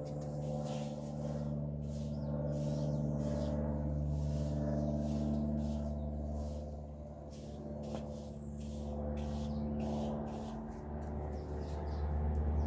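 Steady low engine hum heard from inside a car, shifting lower near the end.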